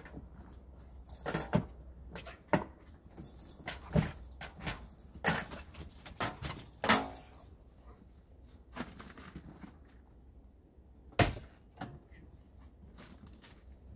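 Irregular clicks, knocks and rattles with a metallic jangle as a car door is worked open and handled, with quieter stretches between.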